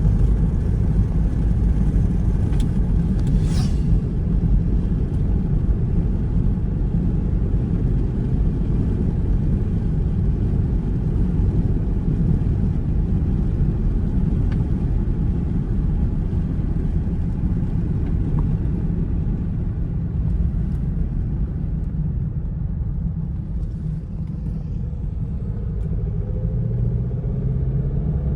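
A car driving: steady low rumble of road and engine noise, with a short sharp knock about three and a half seconds in and an engine note rising near the end as it speeds up.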